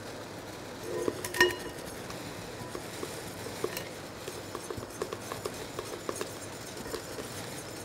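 Metal balloon whisk gently stirring egg whites and sugar in a glass bowl over a bain-marie as they heat for a Swiss meringue. The wires make light, scattered clicks against the glass, with one louder ringing clink about a second and a half in.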